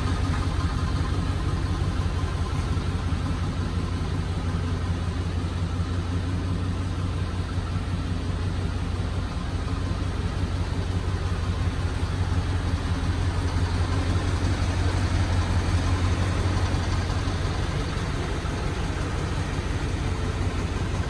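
1988 GMC Suburban's engine idling steadily.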